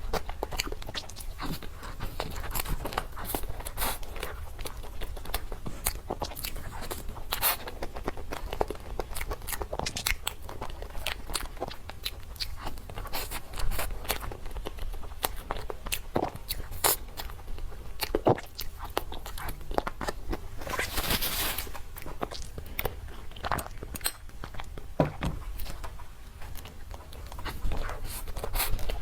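Close-miked eating sounds of a person biting and chewing soft dessert cake: many small wet mouth clicks and smacks, with a brief louder crackly bite a little over two-thirds of the way through.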